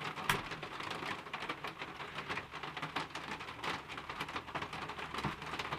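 Very sticky slime being pulled and pressed by hand, giving a faint, steady patter of small irregular crackles and clicks.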